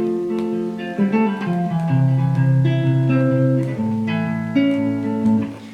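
Guitar playing an instrumental passage of a slow song, plucked chords ringing on and changing about once a second.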